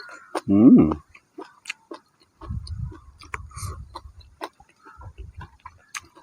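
A person chewing and crunching food close to the microphone, with many small crisp clicks. There is a short hummed "mm" about half a second in, and low gusts of wind rumble on the microphone in the middle and again near the end.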